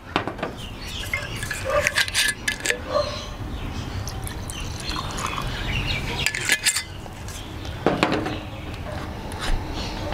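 Whisky pouring from a glass bottle into a crystal tumbler, with several clinks and knocks of glass bottles and tumblers on a glass-topped table.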